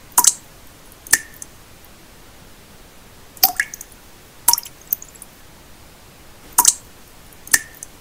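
Water droplets falling into still water: six sharp plinks, each with a brief ringing pitch, coming in pairs about a second apart. Underneath runs a steady pink-noise hiss.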